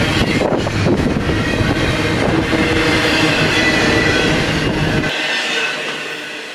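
Double-stack intermodal freight cars rolling past close by: steel wheels rumbling and clattering on the rails, with thin squealing tones over the top. About five seconds in, the sound drops suddenly to a quieter, more distant rumble.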